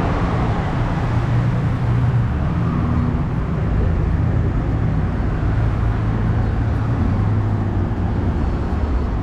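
Busy road traffic: cars passing below in a steady stream, a continuous low rumble of engines and tyres.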